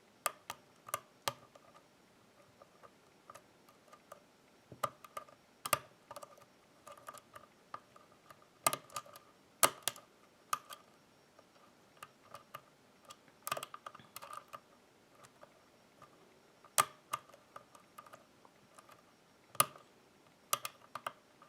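Hook pick and tension wrench working the pins of a Basta pin-tumbler lock: irregular small metallic clicks and ticks as pins are lifted and set under light tension, with a few louder clicks.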